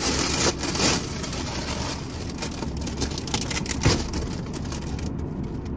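Wrapping paper being torn and crinkled off a gift in short bursts, over a steady low hum.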